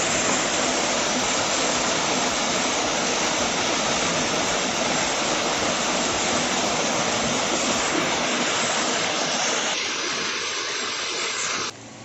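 Small waterfall's thin streams splashing into a shallow rock pool: a steady rush of falling water. It falls away sharply near the end, leaving a much quieter background.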